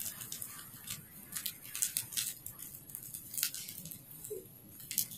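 Monosodium glutamate crystals trickling from a small plastic sachet into a plastic bottle: a faint, irregular patter of tiny ticks, a few louder ones around the middle.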